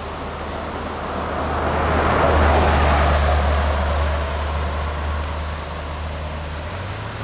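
A vehicle passing by, its noise swelling over a couple of seconds and then fading, over a steady rushing noise and a low hum.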